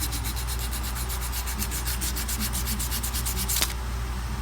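Sandpaper, about 200 grit, rubbed by hand over the ramp surface of a Polaris Ranger 500 driven-clutch helix in rapid back-and-forth strokes, several a second, smoothing out file marks. A steady low hum runs underneath, and there is one sharp click about three and a half seconds in.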